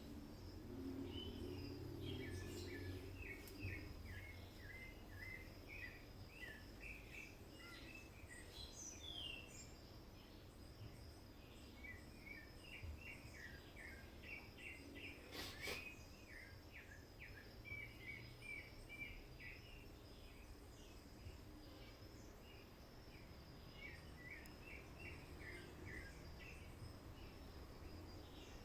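Faint birdsong: clusters of short, quick chirps repeating on and off, over a low steady hum, with one sharp click about halfway through.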